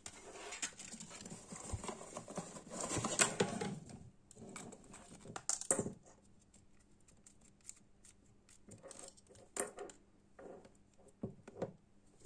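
Rustling and handling noise as a mini ceiling fan is taken out of its cardboard box, loudest about three seconds in, with a sharp knock near the middle. After that come scattered light clicks and knocks from the plastic fan body and its coiled cord being handled.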